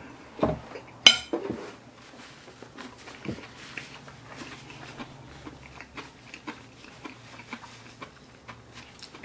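A dull knock, then a sharp ringing clink of a metal fork against a ceramic plate about a second in. After it come soft tissue-paper rustling and small clicks and rustles as a tissue is wiped across the mouth.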